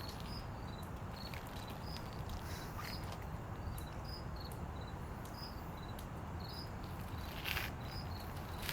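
Short high-pitched chirps repeating irregularly over a steady low background rumble, with a brief rustle about seven and a half seconds in.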